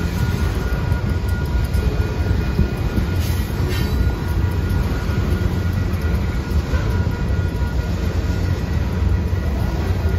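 Freight train of covered hopper cars rolling past at a grade crossing: a steady, loud rumble of steel wheels on the rails, with faint steady high-pitched tones above it.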